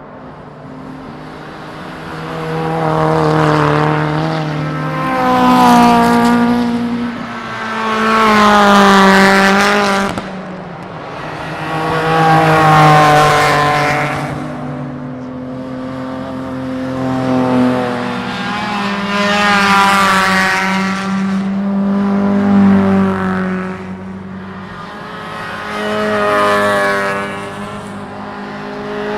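Racing cars passing one after another at speed, about eight pass-bys. Each engine swells up and fades away, its pitch dropping as it goes past.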